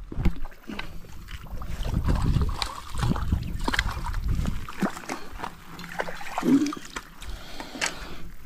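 Splashing water with rustling and knocking handling noise close to the microphone, made up of many short clicks and knocks over a low rumble.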